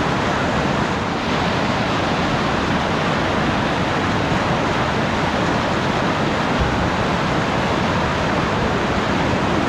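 Whitewater rapid: river water pouring over a rock ledge and churning in the hole below, a loud, steady rushing noise.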